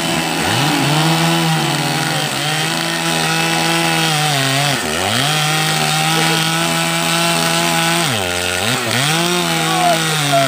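Two-stroke chainsaw running at high revs while cutting into a tree trunk, the engine dropping toward idle and revving back up several times, about five seconds in and again near the end.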